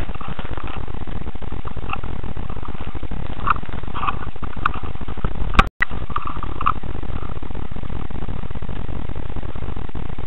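Steady low rumbling noise from a cheap action camera's microphone, with faint scattered ticks and a sharp click followed by a split-second dropout about halfway through.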